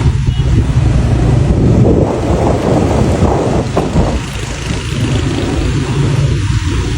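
A motor vehicle running steadily with a low rumble, with wind on the microphone.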